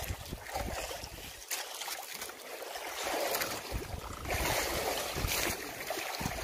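Wind buffeting the microphone in irregular low gusts, over choppy sea water sloshing against a small outrigger boat.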